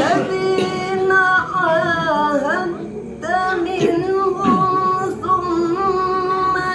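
Quran recitation (tilawah) in maqam Nahawand: a single high male voice holds long, melismatic notes, ornamented with wavering turns, in two phrases with a short breath a little under halfway through.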